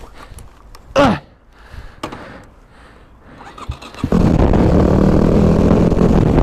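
Supermoto motorcycle engine, close to the microphone, comes in suddenly about four seconds in and runs steadily.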